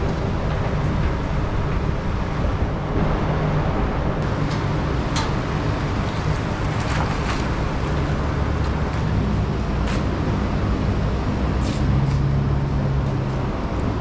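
Chevrolet Silverado pickup truck engine running as the truck slowly backs up, over steady traffic hum, with a few light knocks.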